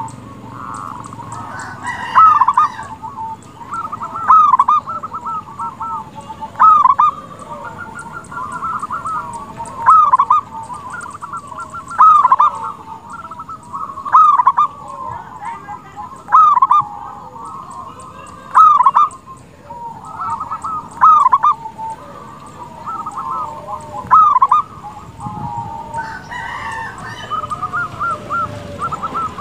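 Zebra dove (perkutut) cooing: a repeated staccato phrase that ends in a loud note, coming about every two seconds, with softer rolling coos between.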